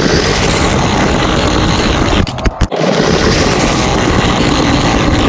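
Loud, steady rolling noise of a GoPro camera car running down a toy race track, picked up by the camera's own microphone. It drops out briefly about two and a half seconds in.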